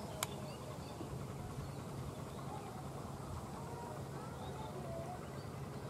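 Bangladesh Railway diesel locomotive's engine running with a steady low drone, heard from a distance as it approaches slowly. A single sharp click about a quarter second in.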